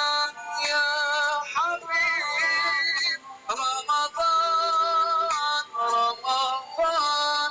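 Background music with a melody of held, sung-like synthetic notes.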